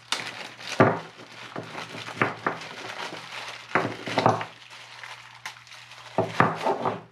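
Plastic bag crinkling in irregular bursts as it is opened and rummaged through, with small steel lathe accessories (live center, spur drive) clinking against each other.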